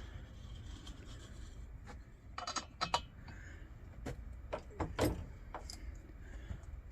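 Scattered light clicks and taps of small metal lantern parts being handled, a few at a time, over a low steady hum.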